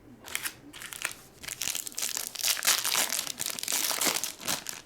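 Plastic wrapper of a trading-card pack crinkling as it is torn open and crumpled by hand: a rapid, irregular crackle that builds after the first second and stays busy almost to the end.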